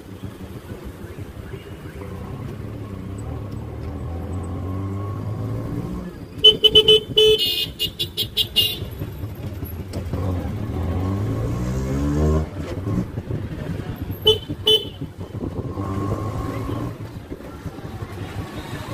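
Auto rickshaw engine running in traffic, its pitch rising and falling as it speeds up and slows. Vehicle horns honk in a rapid series about a third of the way in, and once more briefly about three-quarters through.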